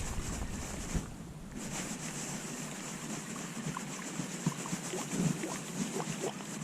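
Open-air ambience around a small boat on a pond: a steady hiss of wind and water with a few faint ticks and a short knock about a second in.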